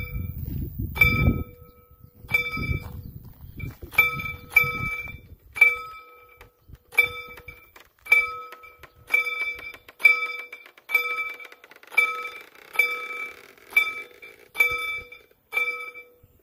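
Railroad crossing warning bell ringing about once a second, each strike a clear ringing tone with overtones, sounding while the barrier arms come down. The ringing stops near the end as the barriers reach the fully lowered position.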